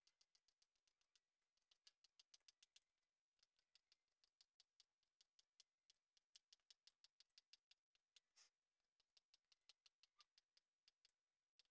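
Faint, quick ticking of chalk on a blackboard as short hatching strokes are drawn, several strokes a second, with a couple of brief pauses and one longer stroke about eight and a half seconds in.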